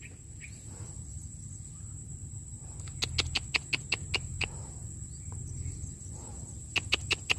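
Steady high-pitched drone of crickets or other insects. Two runs of quick sharp clicks cut across it, one about three seconds in and another near the end.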